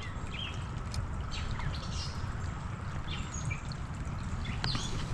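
Creek water running, with many short bird chirps scattered throughout.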